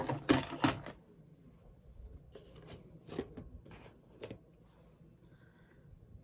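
Handling noises of small toys and their packaging: a burst of rustling and knocking in the first second, then a few scattered clicks and taps.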